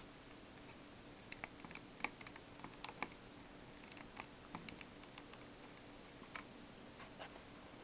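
Faint, irregular small clicks and ticks of a Samsung TL205 digital camera's metal LCD frame and plastic body parts being pried up and wiggled loose by hand.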